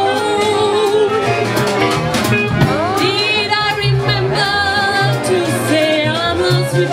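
A live acoustic band playing a song: a woman singing into a microphone over accordion, plucked upright double bass and a drum kit keeping a steady beat.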